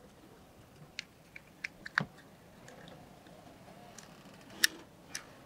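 Scattered small clicks and taps of a plastic circuit-breaker casing being handled and pressed together, about eight sharp clicks in all, the loudest about two seconds in and another near the end.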